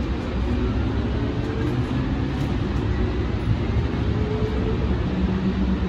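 Siemens light rail vehicle running on the track, heard from inside the driver's cab: a steady low rumble of wheels and motors, with a faint whine slowly rising in pitch as the train picks up speed.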